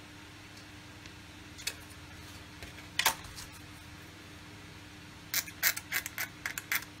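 Hobby knife blade scraping the corner of a plastic model-kit wing spar in quick strokes, about four a second, starting a little after five seconds in, to chamfer off a corner that fouls the spar. Earlier there are two light clicks from the plastic parts being handled.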